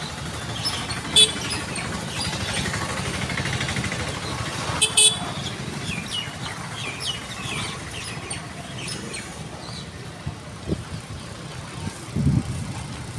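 Outdoor street ambience with a motor vehicle going by, swelling a couple of seconds in, and a few sharp clicks.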